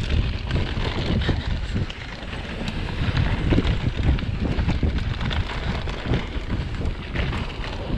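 Mountain bike descending a dry dirt trail: wind rushing over the camera microphone and tyres running on loose dirt, with frequent small knocks and rattles from the bike over bumps.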